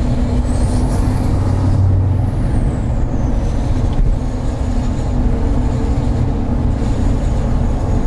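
Tuned and deleted 2020 GMC Sierra AT4's L5P Duramax 6.6 L V8 turbo-diesel with 5-inch straight-pipe exhaust, pulling under throttle and heard from inside the cab. A high turbo whistle rises in pitch from about half a second in, then falls away by about three seconds in, after which a fainter steady whistle carries on over the engine drone.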